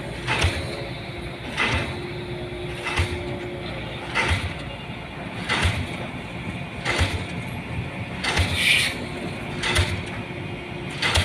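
DD 55 diesel pile hammer driving a concrete pile. It strikes in a steady rhythm, about one blow every 1.4 seconds, nine blows in all, over a steady engine drone.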